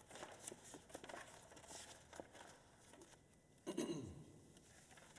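Quiet room with faint rustles and small clicks as the players shift and handle their nylon-string classical guitars. About three and a half seconds in there is one short, louder bump with a quickly falling tone.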